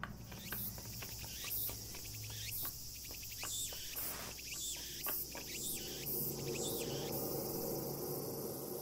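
A steady, high-pitched chorus of insects, with a run of short bird chirps over the first seven seconds or so.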